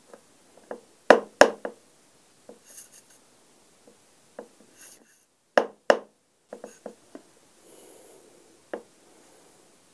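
Handling noise from a plastic wood-glue bottle being squeezed into a recess in a wooden board: scattered sharp clicks and taps, the loudest a little after one second and just before six seconds, with a few soft hissy sputters in between.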